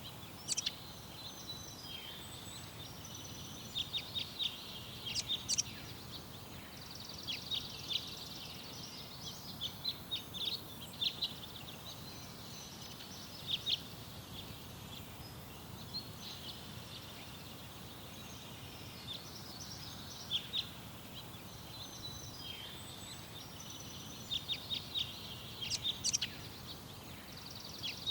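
Small garden birds chirping and singing in short bursts of quick, high notes every few seconds, over a steady low background noise.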